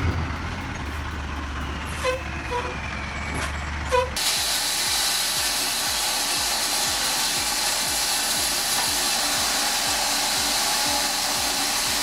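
Heavy engine running with a few short clanks, then, about four seconds in, an abrupt change to a louder, steady machine noise.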